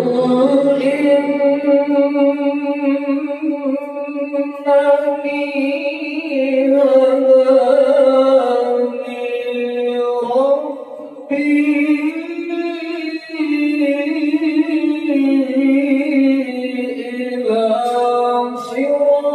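A man reciting the Quran in the melodic tilawah style, his voice holding long, ornamented notes, with a brief pause about ten seconds in before he carries on.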